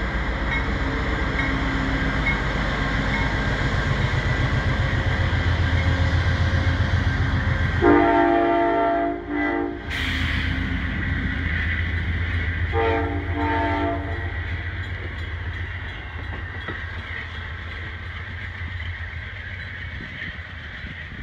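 Amtrak GE Genesis P42DC diesel locomotive and its passenger train passing close at speed, with steady engine and wheel noise. The horn sounds twice, a long blast about eight seconds in and a shorter one around thirteen seconds, with a sharp knock just after the first. The wheel noise then fades as the train moves away.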